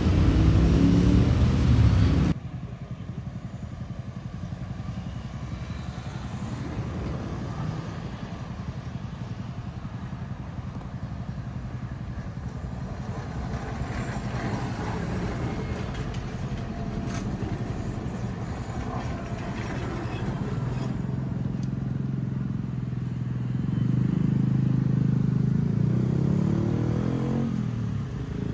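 City street traffic beside the tram line. A city bus passes at the start with a gliding engine note, then it cuts to a quieter steady street noise as an Alstom Citadis tram moves past. Near the end a louder vehicle tone rises and falls.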